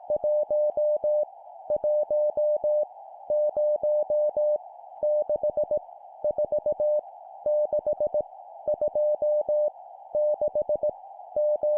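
Morse code (CW) at 17 words per minute: a steady mid-pitched tone keyed into dots and dashes, sending random digits of five dots and dashes each, with short gaps between them. A constant hiss runs underneath the tone.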